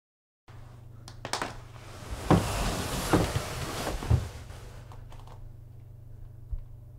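Three soft thuds about a second apart against a closed interior door, with rustling between them, over a steady low hum.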